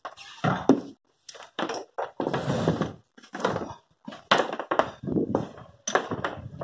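Handling noise: a string of irregular knocks, thuds and scrapes as a router and its rubber power cord are picked up, dragged and set down on a wooden workbench.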